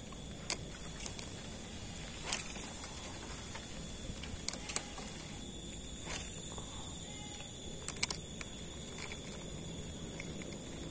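Scattered sharp clicks and taps from handling a spinning rod and reel, the loudest about two seconds in and a quick double click near the end, over a faint steady background with a thin high hum.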